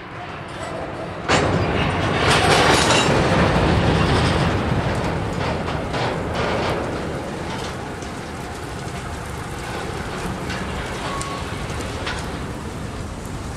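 Empty freight cars rolling slowly along the track, a rumbling noise with rattles and clicks from the wheels and car bodies. It jumps suddenly louder about a second in, then eases off after several seconds to a steadier rumble.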